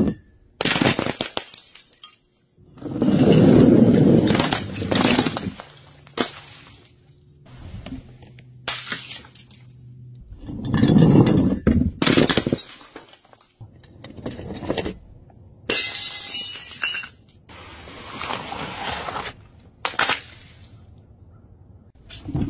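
Glass bottles smashing one after another: several separate crashes of shattering glass with tinkling shards, some short and sharp, some longer and spread out.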